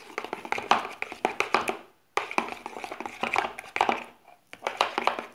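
Metal spoon beating raw eggs in a bowl: rapid clicking and tapping of the spoon against the bowl. It breaks off briefly about two seconds in and again near four seconds.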